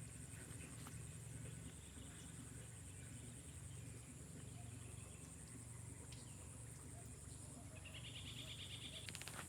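Faint outdoor insect chorus: a steady high-pitched, fast-pulsing trill, with a second, lower trill joining for about a second and a half near the end, over a faint low hum.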